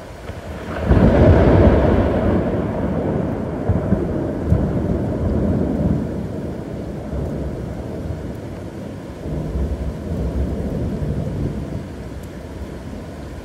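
Thunder in a rainstorm: a loud crack about a second in rolls into a long low rumble that slowly fades, swelling again briefly about nine seconds in, over a steady hiss of rain.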